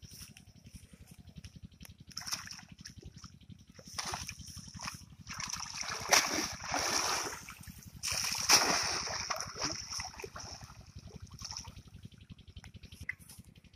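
Cast net being hauled out of a pond with fish in it: water splashing and streaming off the mesh as the net is lifted, loudest in two surges about six and eight and a half seconds in.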